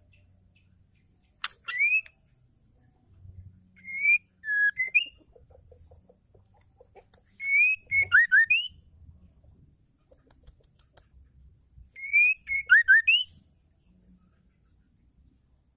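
White-rumped shama (murai batu) singing. Four short phrases of clear whistled notes that glide up and down, with sharp ticking notes mixed in, separated by pauses of about two to four seconds.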